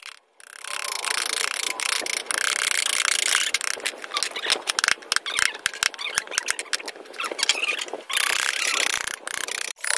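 Steel carving gouges and chisels cutting into a wooden panel by hand: a quick run of sharp clicks and scraping, squeaky cuts as the blade shaves the wood.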